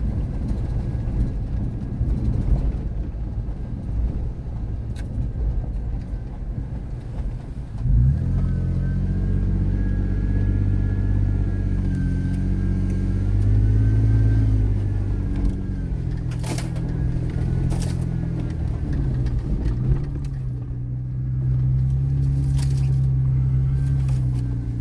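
Car engine and tyre rumble heard from inside the cabin while driving a rough dirt track. About eight seconds in, the engine note comes up clearly and rises and falls with the throttle, and there are a few sharp knocks from bumps in the second half.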